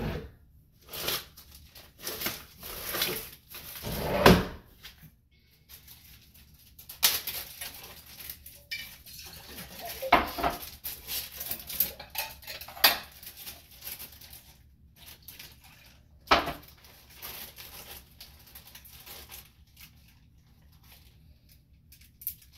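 Glass jars and utensils being handled on a kitchen counter: scattered clinks and knocks with quieter handling noise between them, the loudest knocks about four, ten and sixteen seconds in.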